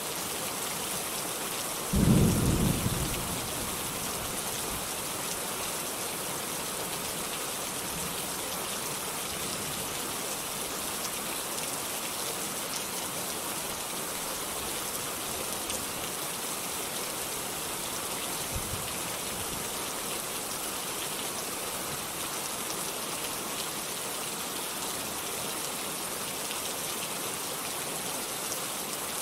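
Steady heavy rain hissing, with one loud clap of thunder about two seconds in that rumbles away over a second or so, and a much fainter low rumble later on.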